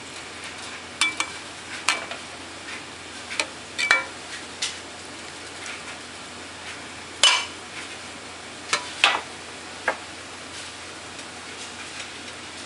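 Fish broth simmering in a metal pot: a steady bubbling hiss with about ten sharp, irregular pops and ticks, the loudest about seven seconds in.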